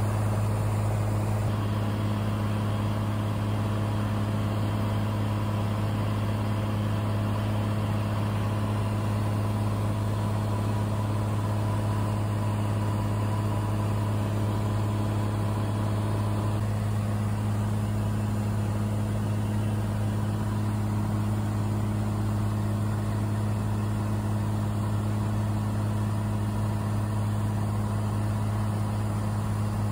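Cessna 182's piston engine and propeller droning steadily in cruise, heard inside the cabin, with a constant low hum and airflow noise and no change in pitch.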